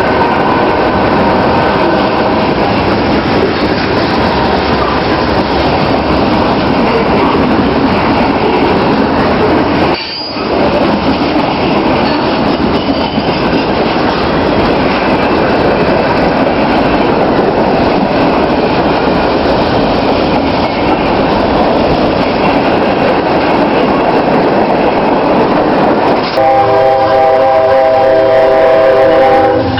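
Train running past close by, a loud steady rush of wheels on the rails. The sound drops away briefly about ten seconds in. Near the end the train horn sounds a sustained chord.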